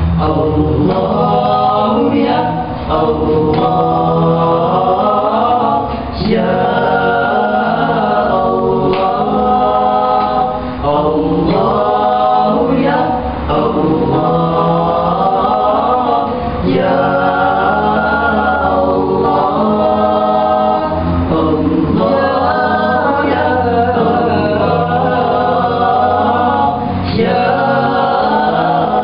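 A boys' a cappella nasyid group singing in harmony, with several male voices together and no instruments.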